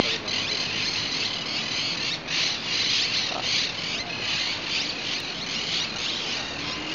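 Dense chorus of many birds chattering and squawking, a continuous high-pitched din that swells and ebbs, with a faint low rumble of traffic underneath.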